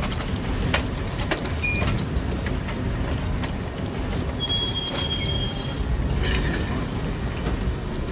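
In-game sound of riding a moving train: a steady low rumble with scattered sharp clicks and knocks. A brief thin high squeal comes about four and a half seconds in.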